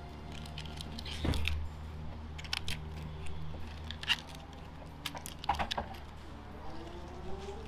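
Crinkling and sharp clicks of foil and small plastic dog-food trays being opened and handled by hand.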